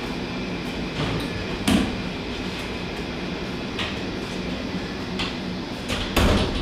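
Steady hum of operating-room equipment and ventilation, with a few short knocks and clatters; the loudest and longest comes near the end.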